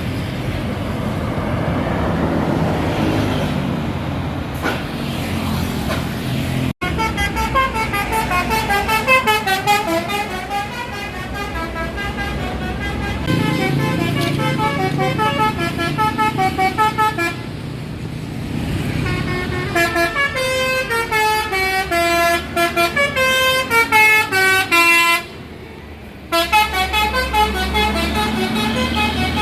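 Bus engine and traffic noise, then a bus's telolet multi-tone air horn playing a fast tune of short notes in rising and falling runs, over and over, with the engine running underneath. The horn stops briefly near the end and the engine noise swells as the bus moves on.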